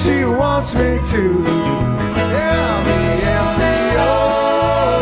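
Live band playing an instrumental break in a country-flavoured song: a gliding lead melody with bent notes and one long held note, over electric guitar, bass guitar and drum kit keeping a steady beat.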